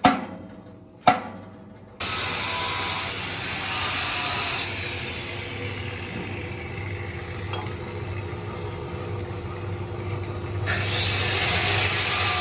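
Two sharp knocks, then workshop machinery starting about two seconds in and running steadily: a low hum under a loud hiss, growing louder near the end.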